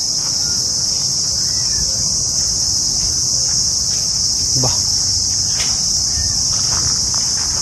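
Steady, high-pitched chirring of insects, unbroken throughout.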